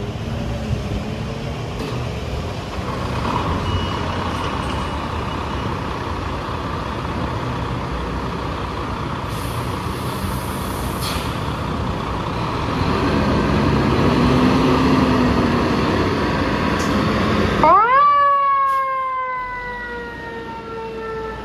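Fire engine's diesel engine running, growing louder as the rig pulls out, with a hiss of air from the air brakes about nine seconds in. Near the end a mechanical siren winds up sharply and then slowly winds down.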